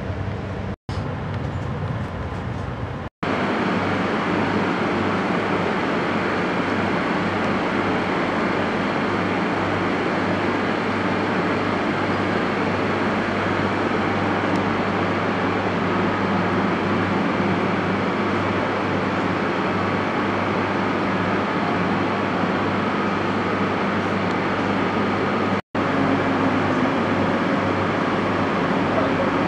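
AVE high-speed train running, a steady even rumble with a low hum underneath, broken by three momentary dropouts.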